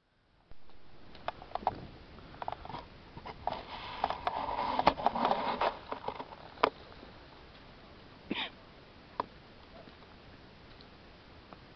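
Brush rustling and twigs snapping under footsteps in dry scrub, loudest about halfway through, with a few short sniffing sounds.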